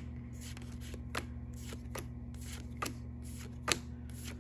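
Pokémon trading cards flipped through one at a time, each card slid from the back of the pack to the front with a short papery snap, about two or three a second, over a steady low hum.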